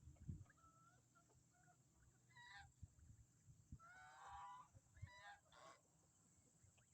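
Poultry calling: a few harsh, honk-like calls, first about two seconds in, then a longer one around four seconds and a shorter one near five and a half seconds.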